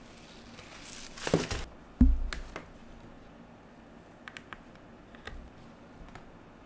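Hands handling a blood pressure cuff and its monitor: a rustle of the cuff fabric, a dull thump about two seconds in, then a few small plastic clicks as the cuff's air hose plug is pushed into the monitor and a front button is pressed.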